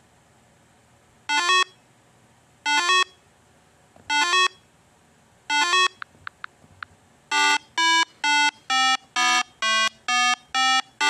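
Electronic beeping tones: four short notes about a second and a half apart, a few faint clicks, then a quicker run of notes about two a second that step up and down in pitch.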